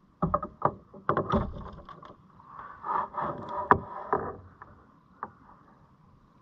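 Knocks, clicks and scraping of fishing gear and a landing net being handled aboard a fishing kayak, in two clusters with one sharp click between three and four seconds in, over a faint steady hum.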